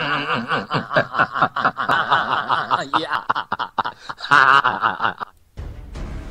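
A man laughing hard in quick repeated bursts that swing up and down in pitch: the famous 'Spanish laughing guy' meme clip. The laughter cuts off about five seconds in, and a low steady hum follows.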